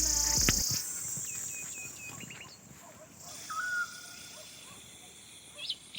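Crickets trilling high and steady, loud at first and dropping away within the first second, with scattered short bird chirps and whistles, one of them a held note about three and a half seconds in.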